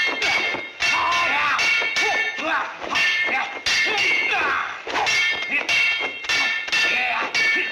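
Rapid metallic clangs of blades and weapons clashing in a film sword fight, about two ringing strikes a second, with shouts and cries between them.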